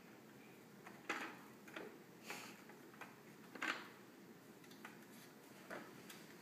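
Scattered light clicks and knocks of a plastic toy cement mixer truck being handled and bumped on a hardwood floor, the two loudest about a second in and about three and a half seconds in.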